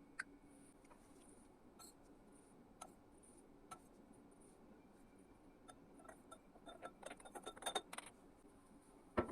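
Light clinks and taps of glass laboratory ware being handled: a few single clicks, then a quick cluster of them a little after the middle, and one sharper clink at the end.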